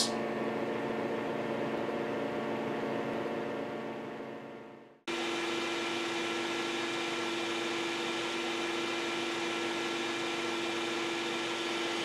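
Homemade ice-water air cooler running: a small fan blowing through an aluminium transmission-cooler radiator while a 12 V water pump circulates the water, giving a steady mechanical hum. The hum fades out about four seconds in, then cuts back in just after five seconds, steady again with a stronger low hum tone.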